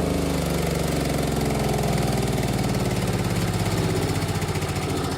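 Wood chipper's small gas engine running with no load, its speed hunting: the governor surging, which the owner puts down to something being out of adjustment.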